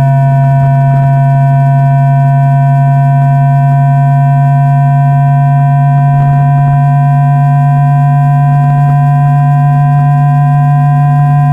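Electrical whine of a JR East E2-1000 series Shinkansen's 3-level IGBT VVVF inverter and traction motors, picked up by an induction coil, running in synchronous unipolar 1-pulse mode under acceleration. It is a steady, loud chord of pure tones that rises slowly in pitch as the train gathers speed.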